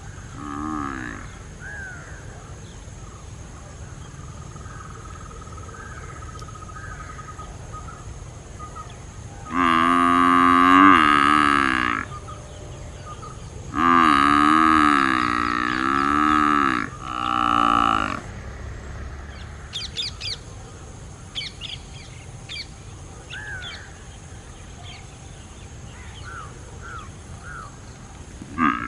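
Domestic water buffalo calling: a short low call right at the start, then three long, loud, wavering moos between about ten and eighteen seconds in. Small bird chirps are heard faintly afterwards.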